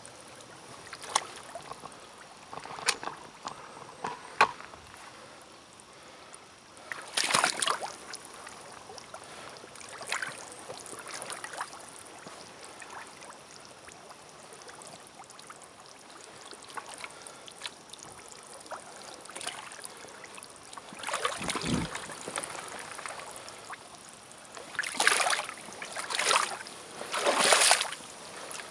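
Black rubber waders moving through swamp water and mud, with splashing and wet squelches as the boots lift and plant. It comes in separate bursts: a few light splashes, then bigger sloshes, with the loudest run near the end.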